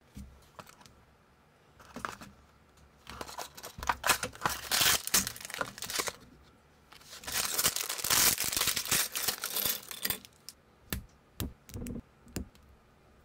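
Packaging being torn open and crinkled by hand, in two long rustling spells. A few short sharp plastic clicks near the end as minifigure parts are pressed together.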